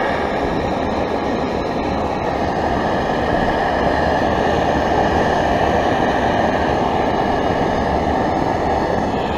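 Primus Omnilite Ti camping stove burning a butane/propane canister mix at full flame under a pot: a steady, loud rushing hiss of the gas burner.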